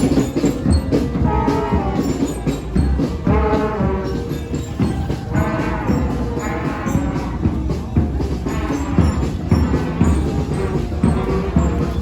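Loud music with a steady drum beat and a melody in short phrases, with a horn-like sound over it.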